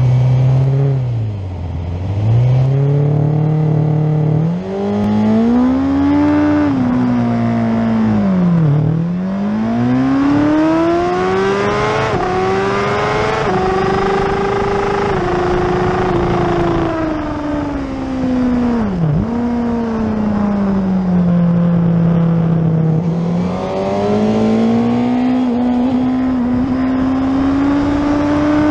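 Suzuki race motorcycle's engine heard from on board, accelerating hard and revving up through the gears, its pitch stepping down at each upshift. Twice the revs fall sharply as the throttle closes and then climb again, over a steady rushing noise.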